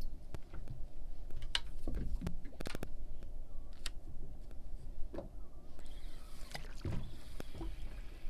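Clicks and knocks from a boat rod and multiplier reel being handled as the rig is let down over the side, over a steady low rumble.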